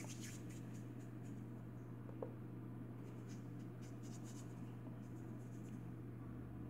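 Faint soft rubbing of palms rolling a small ball of biscuit (cold-porcelain) modelling clay, in a few short scratchy spells over a steady low hum.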